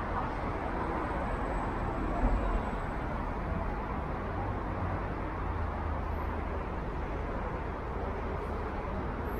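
Steady city-street traffic noise: an even rumble of passing road vehicles.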